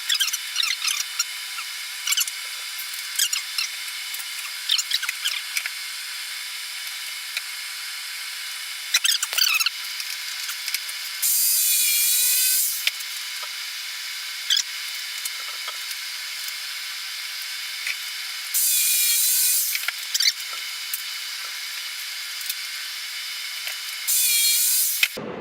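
A power tool working oak runs in three short bursts of about a second and a half each, with small scrapes and knocks of wood handling in between.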